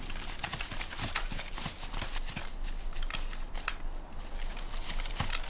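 Several people's footsteps and rustling through dry grass, with irregular small clicks and knocks from carried rifles and gear.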